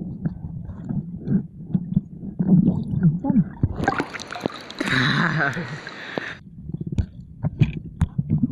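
Muffled underwater gurgling and sloshing heard through a camera's waterproof housing, with scattered clicks and knocks. About four seconds in, a louder hissing rush of water lasts some two and a half seconds and cuts off suddenly.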